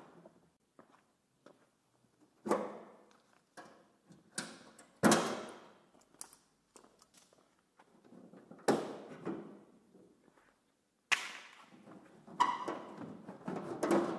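Thin aluminium car body panels being knocked, a few separate thunks a second or more apart, each ringing briefly, becoming a quicker clatter near the end.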